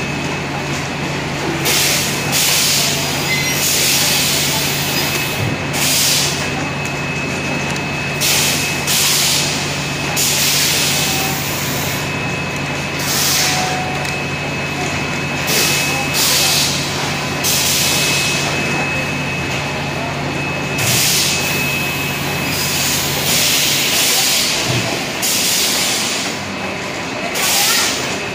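Water-bottle filling machine running: a steady low hum with a thin high whine, and short pneumatic air hisses about once every second or so. The low hum drops out about three-quarters of the way through.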